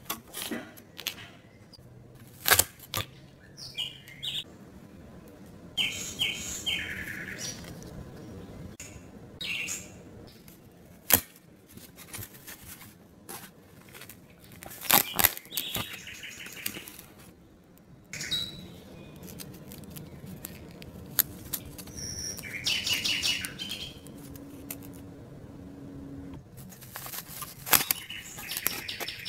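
Die-cut pieces being pressed out of a 3D puzzle sheet by hand: scattered sharp snaps and clicks, with several short stretches of high squeaky rubbing as the pieces are pushed through the board.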